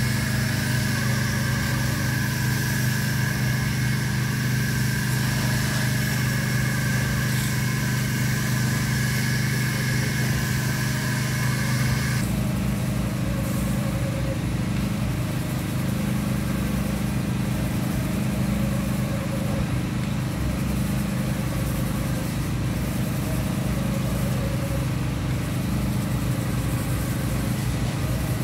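Steady engine-like hum of construction machinery running on a screeding job. Its tone changes abruptly about twelve seconds in.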